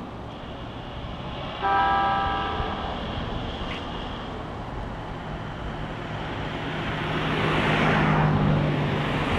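JR 209 series electric train sounding its horn once, a short blast of about a second, about a second and a half in. A low drone and running noise then build up as the train starts to move.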